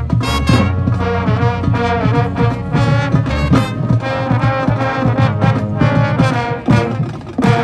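High school marching band playing its show: full brass section (trombones and trumpets) sounding chords and moving phrases over a low rhythmic pulse, with a brief break just before a new phrase near the end.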